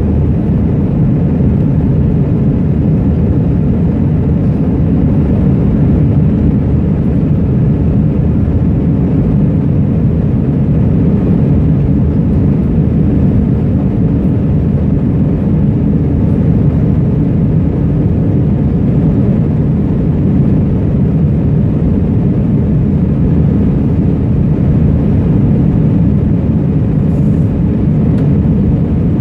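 Jet airliner cabin noise heard from a window seat: the engines and the rush of air over the fuselage make a low, unchanging drone.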